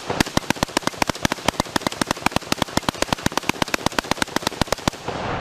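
AK-pattern rifle firing a long, rapid string of shots, roughly eight a second and slightly uneven, that stops about five seconds in and is followed by a fading echo.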